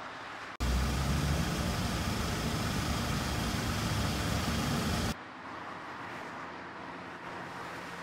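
Loud street traffic noise with a strong low rumble, which cuts off abruptly about five seconds in. A quieter, steady car-cabin road noise follows.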